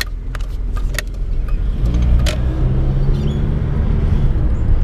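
Car engine and road noise heard from inside the cabin while driving: a steady low rumble with an engine note that grows a little stronger about halfway through, and a few light clicks.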